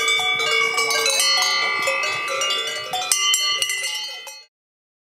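Many cowbells clanging together, their ringing tones at different pitches overlapping, then fading out near the end.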